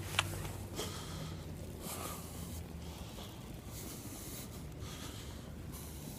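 A person breathing heavily through the nose and mouth close to a phone microphone, in hazy puffs about once a second, with a sharp click just after the start.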